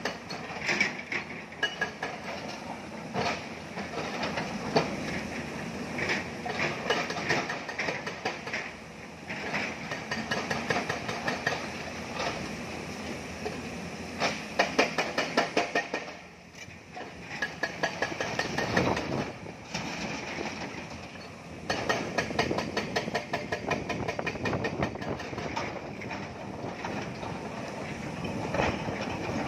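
Crawler excavators (an XCMG and a Tata Hitachi) digging broken rock: engines running under hydraulic load while the buckets scrape and lift stone, with dense clattering and knocking of rocks. The clatter eases off briefly twice past the middle, then picks up again.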